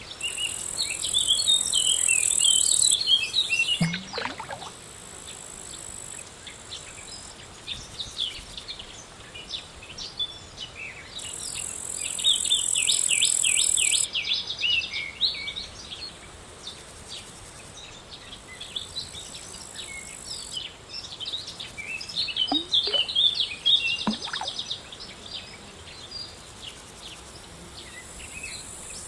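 Outdoor insect and bird chorus: a high-pitched insect buzz that swells and stops in stretches of a few seconds, loudest near the start and again about halfway through, over many small birds chirping.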